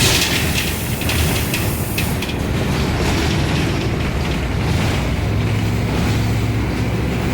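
Bus heard from inside while driving: steady engine and road rumble, with a few rattling clicks in the first two seconds and a steadier low engine hum setting in about five seconds in.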